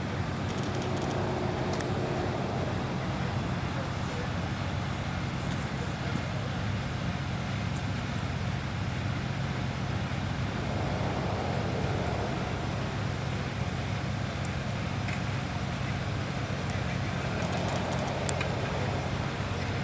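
Diesel engine of a ready-mix concrete truck running steadily as a low drone, with faint distant voices and a few brief high clicks near the start and near the end.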